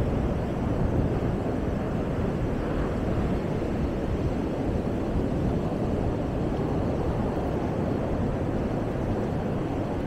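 Steady rushing noise of wind on the microphone and surf breaking along the shore, heaviest in the low end and unbroken throughout.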